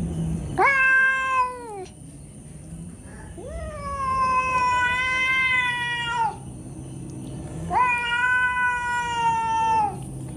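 Domestic cat meowing in three long, drawn-out yowls, the middle one the longest and the first sliding down in pitch at its end.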